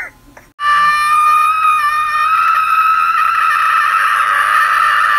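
A person screaming: one long, loud, high scream held on a steady pitch, starting about half a second in.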